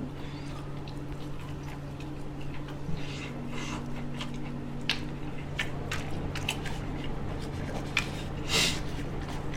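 Close-miked chewing and wet mouth noises of someone eating, with scattered clicks and a couple of louder smacks, over a steady low hum.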